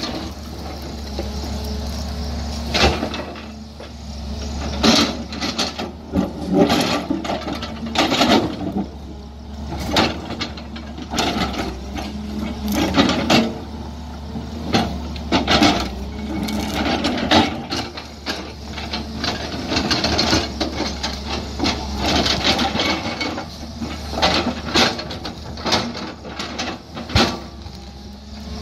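JCB tracked excavator's diesel engine running steadily while its bucket digs into a rocky hillside, with repeated sharp knocks, scrapes and rattles of stones and earth coming at irregular intervals, roughly one to two a second.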